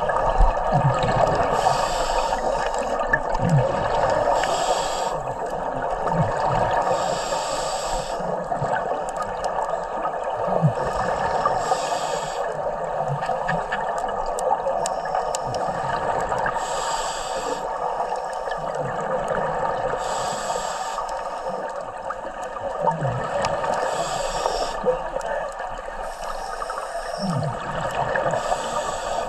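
Scuba diver's regulator breathing heard underwater: rushes of exhaled bubbles recurring every couple of seconds, with low gurgles, over a steady hiss.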